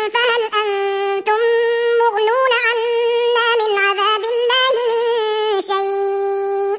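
Male Quran reciter chanting in slow melodic tajweed: long held notes with wavering, ornamented turns between them, broken only by brief dips.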